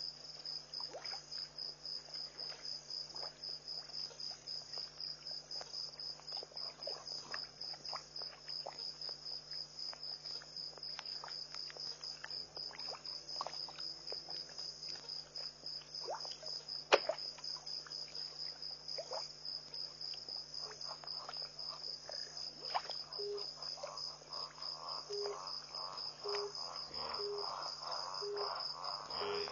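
Night insects chirring steadily in a continuous, pulsing high-pitched trill, over a low steady hum. Faint clicks are scattered through it, with one sharper click about 17 seconds in.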